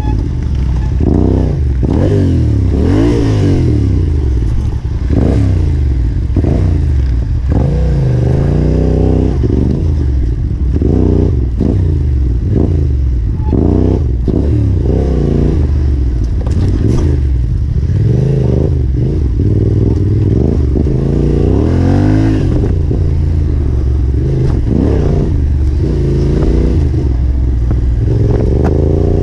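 Yamaha Ténéré 700's parallel-twin engine revving up and down over and over under constant throttle changes while ridden off-road, with clatter and knocks from the bike over rough ground.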